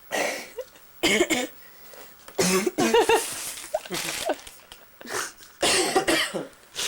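A person coughing repeatedly, in a string of harsh bursts about a second apart, the longest a little past the middle.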